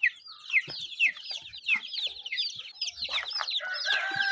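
Many chicks peeping: a dense run of short, high chirps, each falling in pitch, several a second. A steady high tone joins them near the end.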